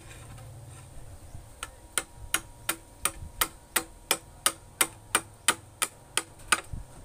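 Machete blade chopping along a wooden boat paddle blank to shape it: sharp, evenly spaced wooden strikes about three a second. They begin about a second and a half in and stop shortly before the end.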